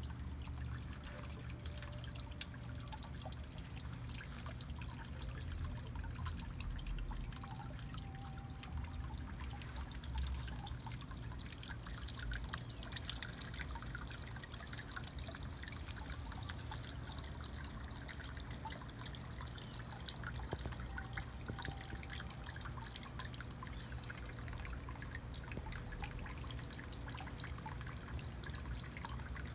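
Water trickling and dripping steadily, over a low rumble.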